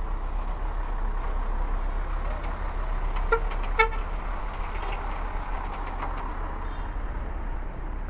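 Heavy diesel dump truck running with a steady low rumble, while a vehicle horn gives two short toots about half a second apart, a little past three seconds in.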